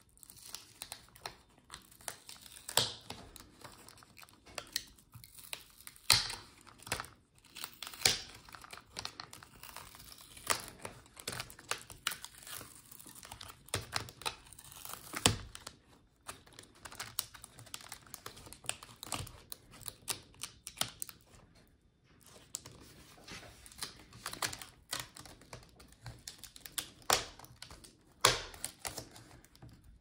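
Plastic front bezel of a laptop LCD being pried up and peeled off its adhesive strips: irregular crackling and clicking, with several sharper snaps as it comes away.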